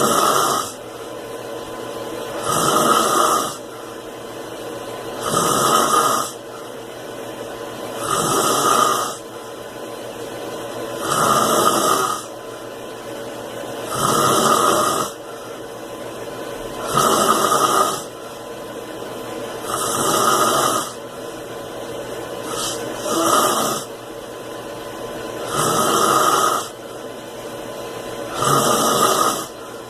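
A man snoring steadily in his sleep: a loud snore about every three seconds, each lasting about a second, with a quieter breathing sound building up between them. Once, past the middle, the snore comes as two short bursts instead of one.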